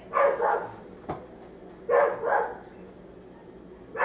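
A dog barking in pairs of quick barks, a pair about every two seconds, three times. A single sharp click sounds about a second in.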